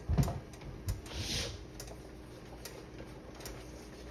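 A few soft knocks and a short scrape from a metal cake pan and a silicone spatula while seasoning is spread over raw chicken breasts, followed by faint, regular ticking.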